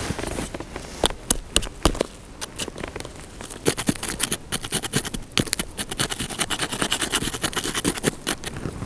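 Lumps of dry earth being set and pressed into place by hand: a few separate knocks at first, then a dense run of gritty crunching and scraping from about four seconds in until near the end.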